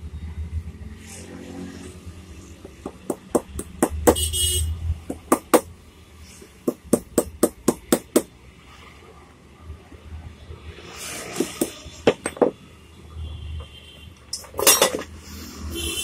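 Metal parts of a dismantled demolition hammer being handled on a workbench: a run of about fifteen sharp metallic taps, roughly three a second, then rustling and a louder clatter near the end.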